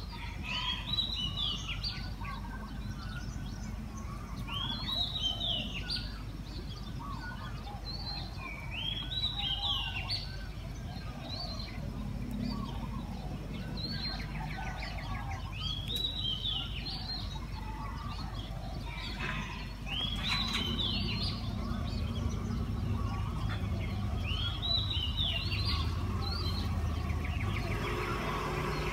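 A songbird repeating the same short, quick song phrase about every four seconds, over a steady low background rumble that grows louder about two-thirds of the way through.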